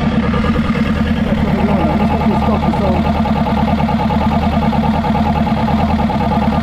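Suzuki GSX-R1000 K1's inline-four engine idling steadily as it warms up, running evenly.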